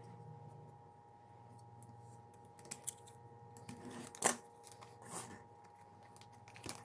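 Plastic shrink-wrap being picked at and peeled off an album: scattered crinkles and sharp clicks, the sharpest about two-thirds of the way through, over a faint steady hum.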